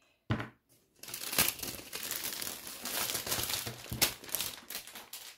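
Thin plastic bag crinkling as it is pulled off a rolled diamond-painting canvas: a brief rustle, then a run of crackling with a few sharper snaps.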